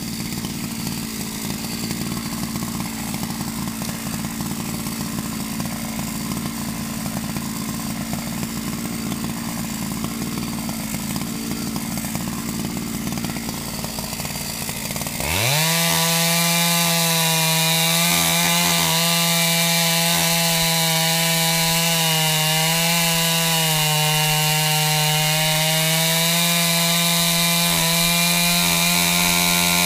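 Gas chainsaw idling with a rapid low patter, then about halfway through it revs sharply up to full throttle and runs loud and steady, its pitch dipping and wavering as the chain cuts into a tree trunk.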